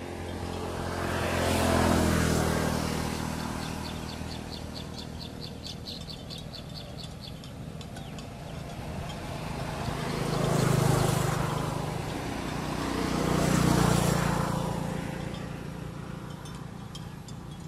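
Motor vehicles passing by, one after another: three engine sounds swell up and fade away, the loudest about two seconds in and two close together near the end.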